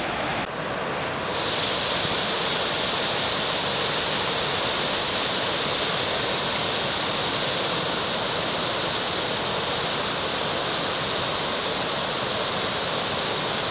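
Steady rush of a fast-flowing, swollen stream in flood.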